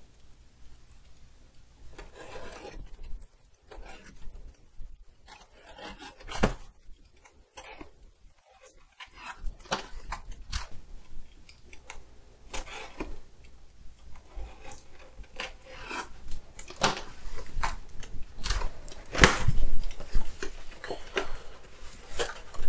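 A cardboard shipping box being opened by hand: irregular scraping, rubbing and rustling of cardboard and packing, with short sharp handling knocks, busier and louder in the last few seconds.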